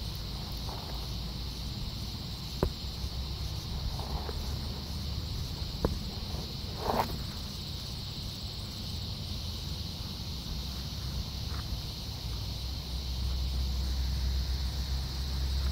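Steady high-pitched chorus of insects. A few faint clicks come through, and a low rumble grows louder near the end.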